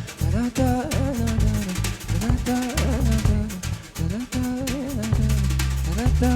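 Live neo-jazz band playing: a drum kit with steady hits and rimshots, a deep bass line, and a wavering melody line over them.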